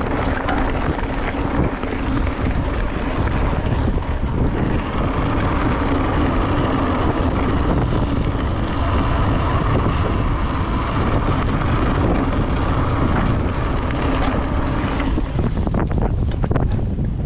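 Wind rushing over the camera microphone as a mountain bike rolls along a gravel track, with tyre rumble and a steady hum through the middle. Near the end the hum stops and the bike rattles and knocks over rougher grass.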